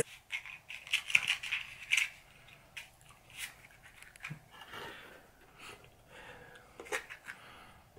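Small cardboard matchbox being handled and slid open, with light rustling scrapes and clicks that are densest in the first couple of seconds, then a few scattered taps as it is put down on a wooden surface.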